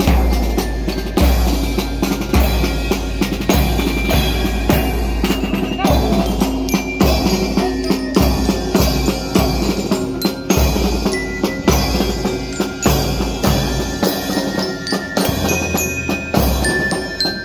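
Marching band playing on the move: bass drums beating a steady pulse about once every second and a quarter, under snare drums and crashed cymbals. Bell lyres ring the melody, with brass holding longer notes.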